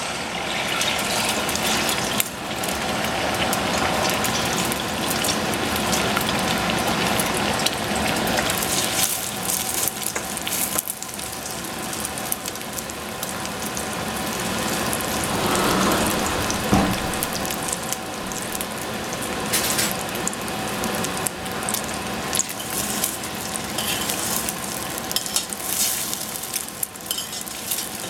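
Beaten egg frying in hot oil in a stainless steel saucepan: a loud, steady sizzle that starts as the egg goes into the pan, with scattered clicks of utensils against the pan.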